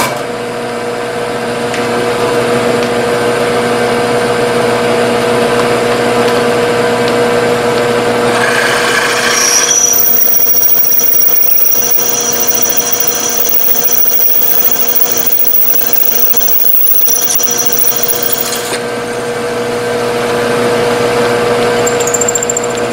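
Milling machine spindle running steadily while a 0.312-inch twist drill cuts through a metal part in a single pass, without pecking. A high-pitched squeal from the cutting comes in about ten seconds in and stops a few seconds before the end.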